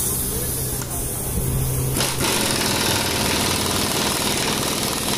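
Air-driven hydraulic bead breaker clamped on a tractor tyre rim, its air pump running with hissing air and a dense mechanical noise that grows fuller about two seconds in, forcing the tyre bead off the rim.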